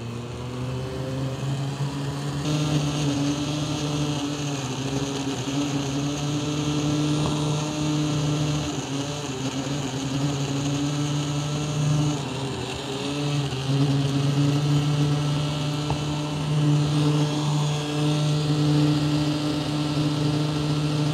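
A large electric mixer running steadily as it blends a big pot of brown bean soup smooth, a steady motor hum whose pitch dips slightly now and then.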